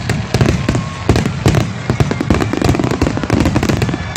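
Aerial fireworks bursting in a dense barrage, many bangs a second overlapping one another.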